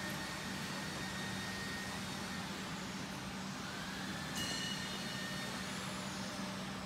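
Steady low machine hum over workshop background noise. A faint whine rises twice, and a short click with a brief high beep-like tone comes about four and a half seconds in.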